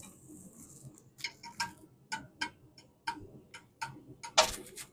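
Light metallic clicks, two or three a second, from a tool levering a van's front brake caliper back to push its piston in, followed by a louder metal scrape near the end.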